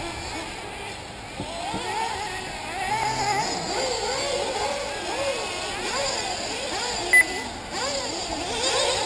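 Several 1/8-scale nitro RC buggy engines revving up and down around the track, their whines overlapping and constantly rising and falling, growing louder about two seconds in. A short, loud beep sounds about seven seconds in.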